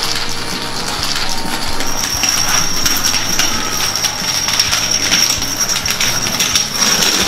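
A long chain of toy dominoes toppling one after another: a dense, rapid clatter of small clicks that keeps going.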